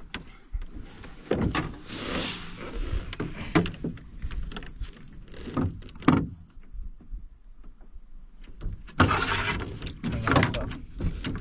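Knocks and clatters against a metal canoe hull, with splashing water, as a small brook trout is landed in a landing net.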